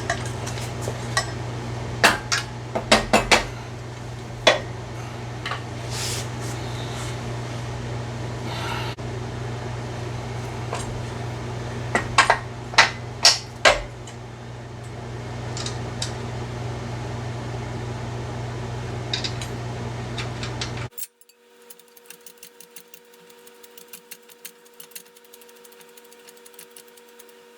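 Metal clinks and clanks of wrenches and steel parts being handled while an engine hoist's hydraulic ram is unbolted and swapped, over a steady low hum. Near the end the hum cuts off suddenly, leaving quieter, quicker clicking.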